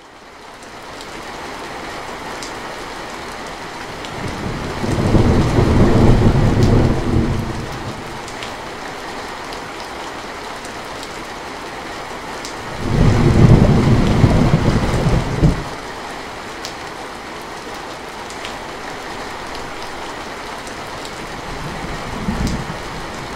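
Heavy rain falling steadily, rising out of silence in the first second, with faint patter of drops. Thunder rolls in twice, each rumble lasting a few seconds, and a weaker rumble comes near the end.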